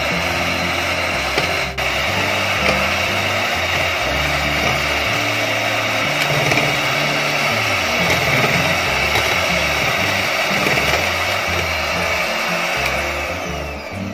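Electric hand beater running at high speed, its twin beaters whipping instant coffee, sugar and hot water into a stiff dalgona foam. The motor noise is steady and cuts out near the end, with background music underneath.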